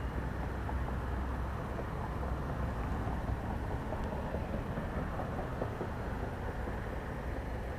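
Steady low outdoor rumble with a few faint ticks, from wind on the microphone or distant road traffic.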